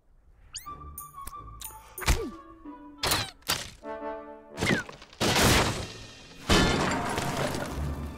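Orchestral film score with cartoon sound effects: a run of sharp knocks and thuds over the first few seconds, then a loud crash at about five seconds. From about six and a half seconds a loud rushing noise follows as a character plunges into water.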